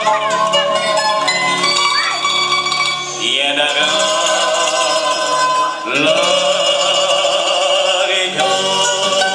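A song playing, with a singing voice over instruments; the melody moves to new held notes about three and six seconds in.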